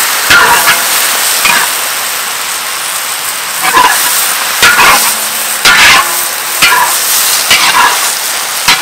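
Leafy greens sizzling as they are stir-fried in a large steel wok, with a metal spatula scraping and clanking against the pan several times.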